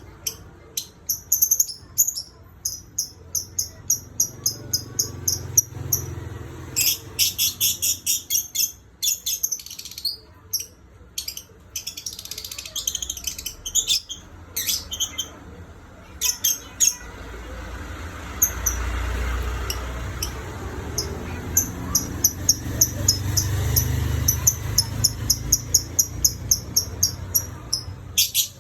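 Pet lovebird whistling in rapid runs of high, sharp chirps, several a second, in bursts with short pauses. A low rumble sits under the chirping in the second half.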